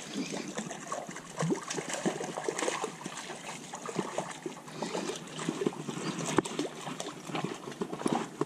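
Water splashing and trickling as a hooked wrasse thrashes at the surface while it is brought in, with irregular clicks and rustles of handling close to the microphone.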